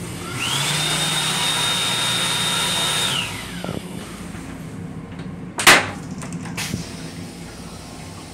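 Hand dryer built into an M7 railcar restroom sink unit blowing: its motor spins up with a rising whine, holds steady for about three seconds, then winds down. A single sharp knock follows a couple of seconds later.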